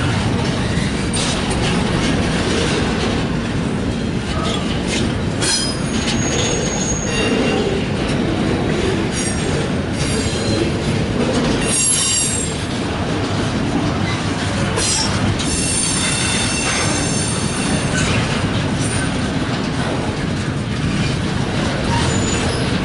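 Loaded well cars of a CSX double-stack intermodal freight train rolling past at a steady pace: a continuous low rumble with sharp clicks from the wheels over the rail joints. The wheels squeal high-pitched for a couple of seconds about two-thirds of the way through.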